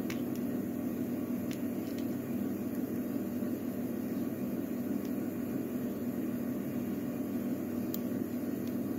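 Steady low background hum, with a few faint small metallic clicks of picking tools working in the lock cylinder.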